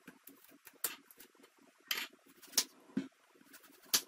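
Kitchen knife cutting an eggplant on a bamboo cutting board: about five sharp knocks at irregular intervals as the blade goes through and strikes the wood.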